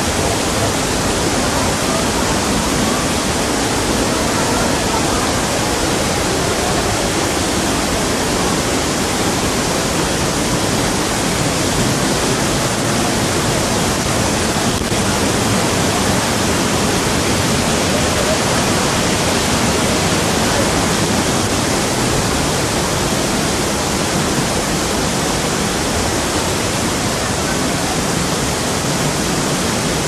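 Waterfall: falling water making a loud, steady rush that does not change.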